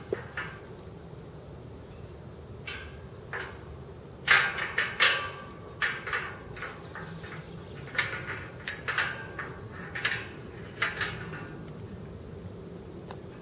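Irregular creaks and scrapes, about a dozen, as a black box-calf leather boot presses and shifts against the bottom bar of a metal wire-mesh gate. They come thickest in the middle stretch.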